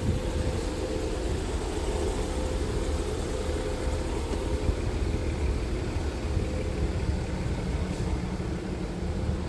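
Steady low rumble of a running vehicle, with a faint steady hum above it.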